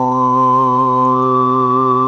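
A man's overtone (throat) singing: a steady low drone with one strong, whistling overtone near 1 kHz held above it, edging slightly higher near the end. It is played back from a computer, with a little added reverb.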